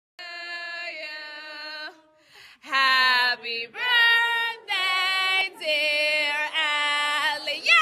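A woman singing in long, held notes, with a short break about two seconds in.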